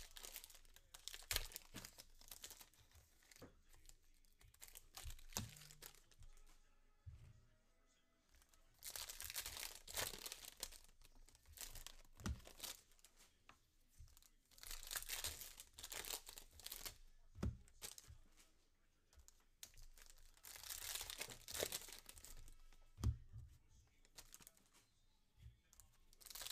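Foil trading-card pack wrappers being torn open and crinkled, in several bursts of tearing and rustling, with a few knocks in between.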